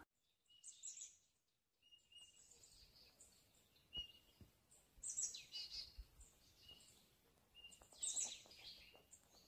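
Faint birdsong: scattered short, high chirps and tweets, coming in a few brief clusters.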